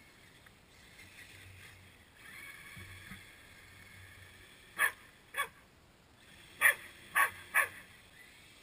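A dog barking five times, two barks and then a quick run of three. Before the barks comes the faint whine of the RC truck's brushless electric motor.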